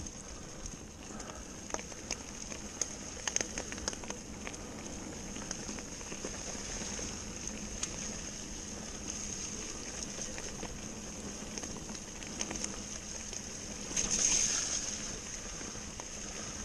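Mountain bike rolling along a dirt forest trail covered in dead leaves: steady tyre and rolling noise, with a few sharp knocks from the bike over bumps in the first few seconds and a louder rushing swish about fourteen seconds in.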